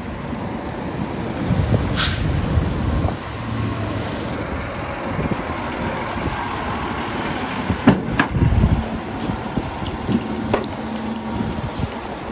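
Fire engine's diesel engine running as the truck drives past and pulls in, with a short air-brake hiss about two seconds in and a few low thumps a little after the middle.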